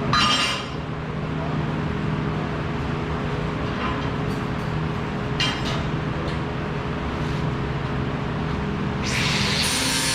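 Workshop machinery humming steadily, with a brief clink of metal at the start and a few light clicks. About nine seconds in, a loud steady hiss from a shop tool starts and keeps on.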